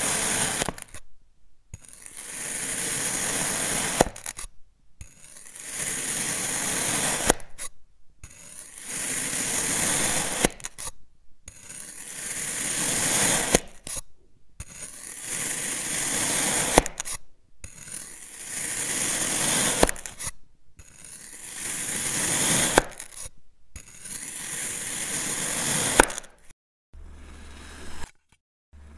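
A thin blade slicing down through a block of moulded sand, slice after slice: each cut is a hiss that grows louder over two to three seconds and ends in a sharp click, about every three seconds, nine times. Near the end it gives way to a quieter, softer sound with a low hum.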